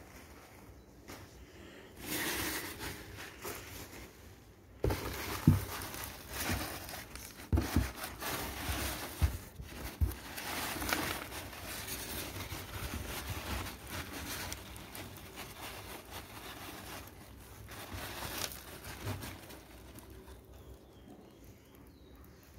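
Crumpled packing paper rustling and crinkling as hands dig through a cardboard box, with a few knocks in the middle. It starts about two seconds in and dies down a couple of seconds before the end.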